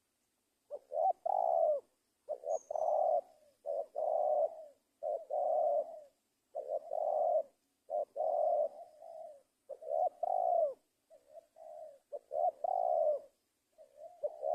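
Spotted dove cooing in full song: a steady series of about ten coo phrases, each a short note running into a longer one.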